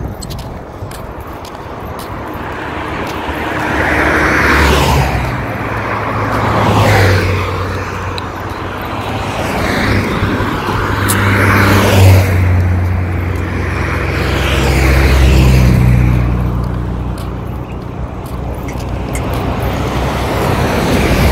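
Cars passing one after another on a multi-lane divided road, about five passes. Each pass swells with tyre and engine noise and then fades away.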